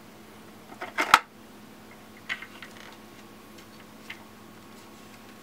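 Parts of a sharpening system clicking and knocking together as they are fitted by hand: a cluster of sharp clicks about a second in, the loudest, then a few lighter clicks around two and a half seconds and a single click near four seconds.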